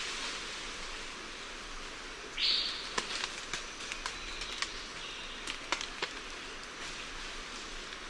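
Lion-tailed macaques moving through forest foliage: a brief hissing rustle about two and a half seconds in, then a scatter of sharp twig and branch snaps, over a steady forest hiss.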